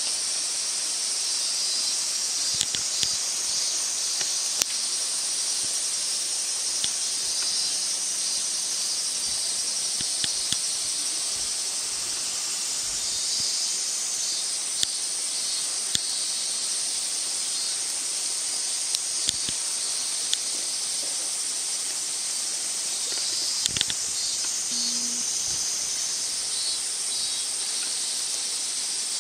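A steady high hiss with scattered sharp clicks and a few soft knocks.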